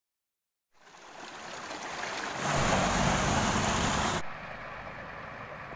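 Small waterfall splashing into a stream, a steady rush of falling water. It fades in about a second in, is loudest in the middle, then drops to a quieter rush.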